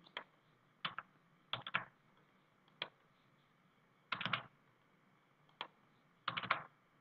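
Typing on a computer keyboard: short bursts of a few keystrokes at a time, about six bursts with pauses between them.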